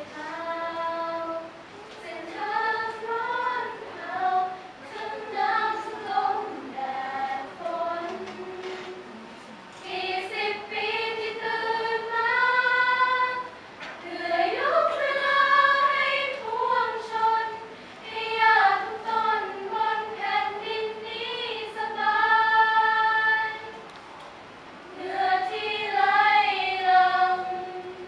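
Female choir of about twenty young women singing in several-part harmony, in long held phrases with short breaks between them.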